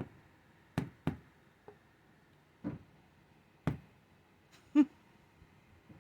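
Sharp single knocks on a wall, about seven spread irregularly with a quick pair about a second in: a parrot knocking and a person answering with a brush, trading knocks back and forth.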